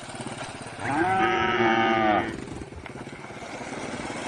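A cow mooing once: a single call of about a second and a half, starting about a second in, over a steady background hiss.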